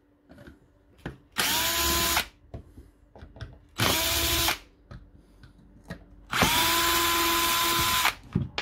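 Power drill driving out the casing screws of a DeWalt 18V XR battery pack in three runs, the motor's whine rising and then holding steady each time; the third run, near the end, is the longest.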